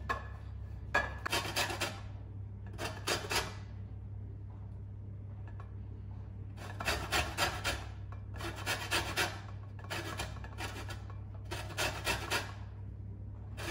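A lemon being zested on a metal box grater: runs of quick rasping strokes, about six of them, with short pauses between. A steady low hum sits underneath.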